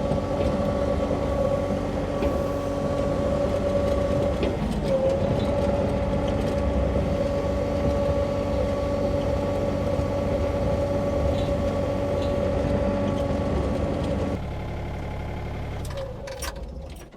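Sany mini excavator running, its diesel engine's low rumble under a steady hydraulic whine that dips briefly about five seconds in. About fourteen seconds in it drops abruptly to a quieter, lower running sound, then dies away near the end.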